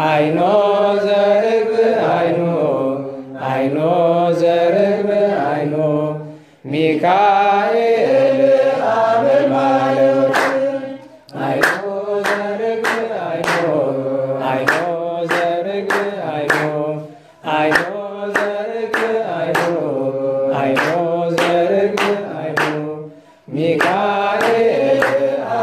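A man's voice chanting an Ethiopian Orthodox hymn in long, drawn-out melodic phrases with short breath pauses. From about halfway through, sharp short strokes come roughly twice a second under the chant.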